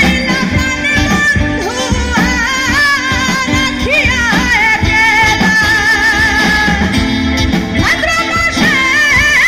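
Live band playing a Bengali folk song: a woman sings the melody into a microphone, with held, wavering notes. Behind her are bass guitar, electric guitar, drums and keyboard, all amplified.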